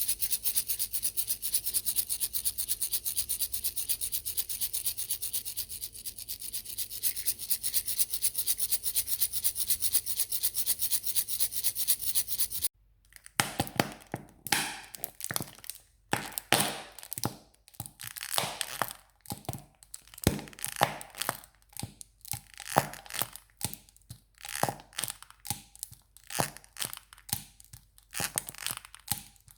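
Household objects being worked for a homemade sound effect: a fast, even scratching rattle for about thirteen seconds stops abruptly, followed by a run of separate scraping, tearing strokes at irregular intervals.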